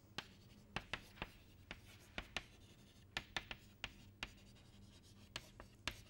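Chalk writing on a chalkboard: a string of short, sharp, irregular taps and scrapes as letters are written, faint.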